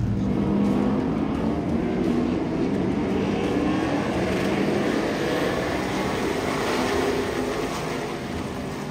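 Several short-track stock car engines running together at speed, their overlapping pitches rising and falling as they lap, fading toward the end.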